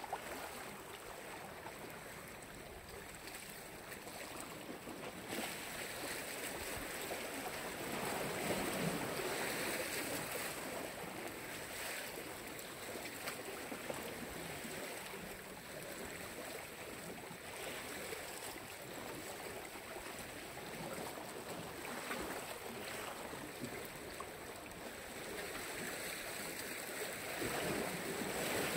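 Black Sea waves washing in, a steady wash of surf that swells louder every several seconds as waves break.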